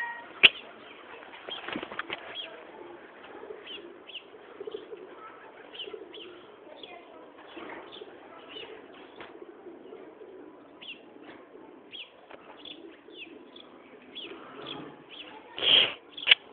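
A horse rolling in arena sand, with faint scuffing, while small birds chirp in the background. A short, loud burst comes near the end, once the horse is back on its feet.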